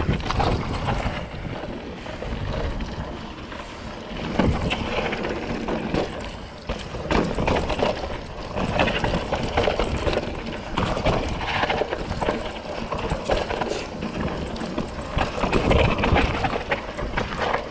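Specialized Rockhopper 29 hardtail mountain bike clattering and rattling over rough, holed trail on a descent, with irregular knocks and bumps throughout.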